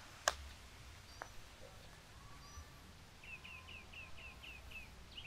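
A putter strikes a golf ball with a sharp click about a third of a second in, and the ball gives a fainter tap about a second later. Near the end a bird repeats a short, falling chirp about four times a second for roughly two seconds.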